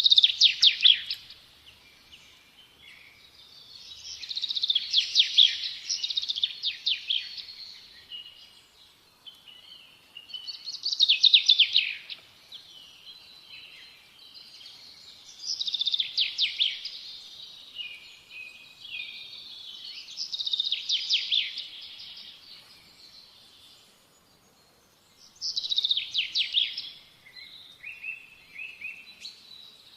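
A small songbird singing: six high-pitched phrases of rapid trilled notes, each lasting about a second or two, returning roughly every five seconds with short pauses between them.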